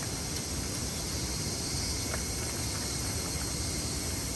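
Steady outdoor background noise: an even hiss over a low rumble, with a faint click about two seconds in.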